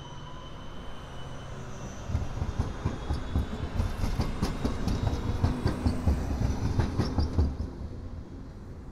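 Articulated electric tram rolling past at close range. A faint high whine at the start gives way to a low rumble of wheels on rails with repeated clacks, which fades as the last car moves off.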